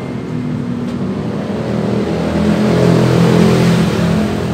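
A motor vehicle's engine passing close by, growing louder to a peak about three seconds in and then easing off.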